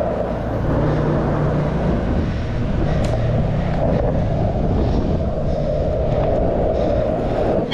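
Skateboard wheels rolling over rough asphalt: a steady rumble, with a light click about three seconds in.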